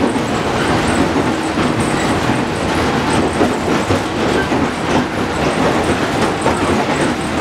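Running sound of a JR Kyushu 415 series 500-subseries electric multiple unit under way between stations: a steady rumble of wheels on rails and running gear.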